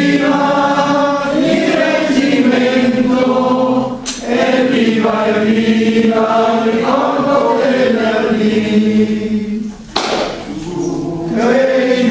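Choir singing a Great War song in Italian in long held phrases, with short breaks between phrases about four and ten seconds in.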